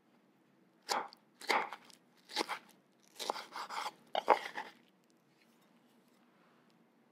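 Kitchen knife slicing and dicing fresh strawberries on a wooden cutting board: about five short bouts of crisp cutting with the blade striking the board, falling quiet after about five seconds.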